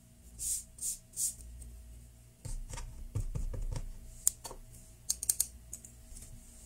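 Hands squeezing and kneading soft Play-Doh modelling clay: three soft hissing squishes in the first second or so, then a run of dull pats and thumps as the lump is pressed on the table. Later come a few sharp plastic clicks as a toy rolling pin is picked up.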